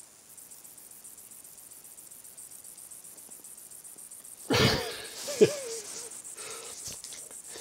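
A man bursts out in a sudden, harsh, cough-like laugh a little past halfway through, followed about a second later by a second short laugh sound.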